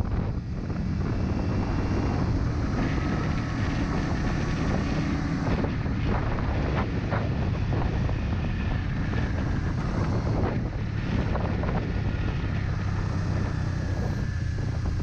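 Motorcycle riding along, its engine running steadily under heavy wind noise on the microphone.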